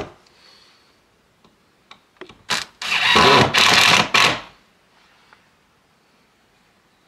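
Cordless impact driver driving a screw through a hinge into a wooden window frame: a short burst, then a longer run of under two seconds that stops abruptly.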